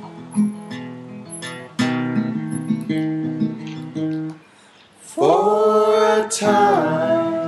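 Acoustic guitar playing picked and strummed chords, breaking off about four and a half seconds in. A singing voice then comes in with a long held note that slides up at the start and bends down near the end.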